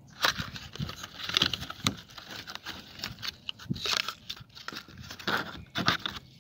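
Small cardboard box of a replacement PCV valve being handled and opened by hand, giving irregular crinkling and crackling scrapes of card.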